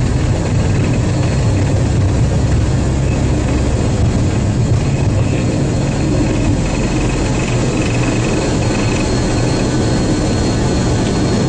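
Boeing 777 jet engines and airflow heard from inside the cockpit: a steady, loud, deep rumble with a faint constant whine above it.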